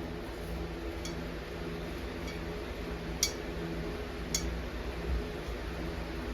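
Brake drum being fitted back over the hub studs: a few light metallic clinks, the sharpest about one, three and four seconds in, over a low steady hum.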